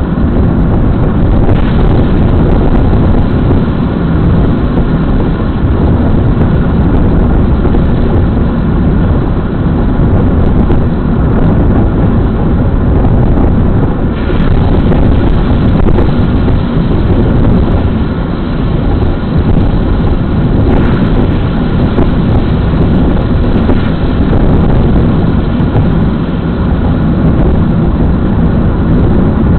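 Loud, steady road and engine noise of a car driving, picked up inside the cabin by a windscreen dashcam.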